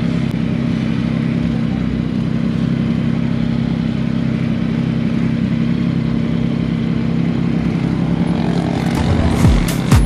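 Yamaha MT-07's parallel-twin engine idling steadily. An electronic dance beat comes in near the end.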